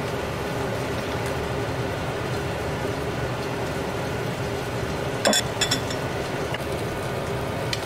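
Metal spoon clinking against a ceramic bowl while a salad is stirred: a quick cluster of clinks about five seconds in and one more near the end, over a steady mechanical hum.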